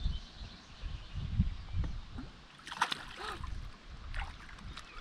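Water sloshing and splashing against the side of a small fishing boat as a fish is let go into the lake by hand, with a brief splash about three seconds in.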